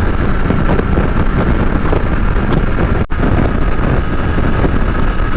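Motorcycle riding at highway speed: steady engine and road noise mixed with wind rushing over the microphone. The sound drops out for an instant about three seconds in.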